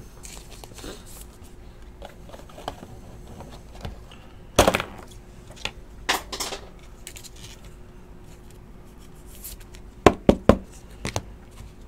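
A trading card being slid into a rigid plastic top loader, with light rustling and a few sharp plastic clacks. The loudest clack comes near the middle, and a quick run of clacks near the end as the holder is set down among the other cards.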